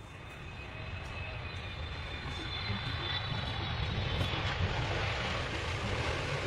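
Airplane passing overhead: its engine noise swells steadily, with a faint high whine over the rush, and is loudest near the end.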